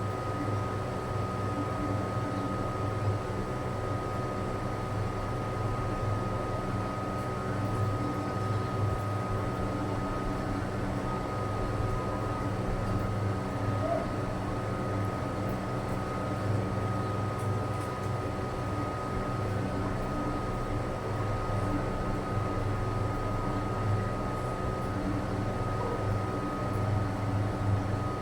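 Steady mechanical hum with a constant high-pitched whine over it, unchanging throughout.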